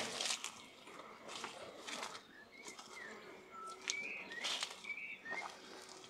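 Tui calling: a scatter of short whistled notes, most of them from about two and a half seconds in, mixed with sharp clicks.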